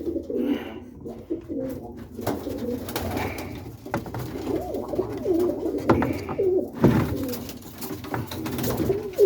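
Birmingham Roller pigeons cooing in the loft, several birds' wavering coos overlapping throughout, with a few clicks and one sharp knock about two-thirds of the way through.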